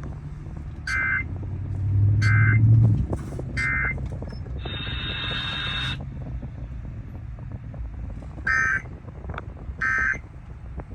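Emergency Alert System end-of-message data bursts: short digital squawks about a second and a half apart, three in a row, then after a pause a second run beginning near the end. A sustained buzzy tone of about a second and a half comes between the runs, and a steady low hum runs underneath, swelling about two seconds in.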